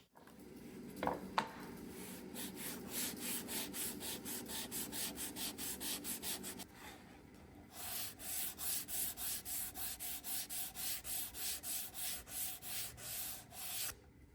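Sandpaper rubbed back and forth by hand over a walnut board, in two runs of even strokes about three a second with a short pause between. It is fine-grit finish sanding, up to 320. A couple of light knocks come about a second in.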